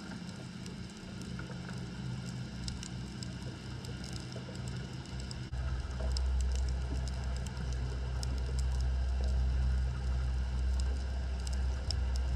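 Underwater ambience picked up by a submerged camera: a steady crackle of scattered clicks over a low hum, with a deeper low rumble coming in about halfway through.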